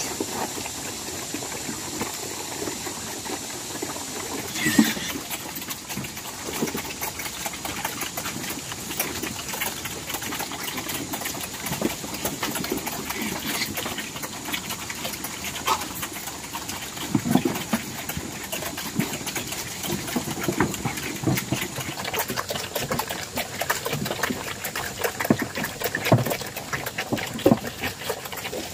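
A group of black pigs and piglets feeding at wooden troughs: rapid, continuous chomping and slurping, with a few louder short grunts.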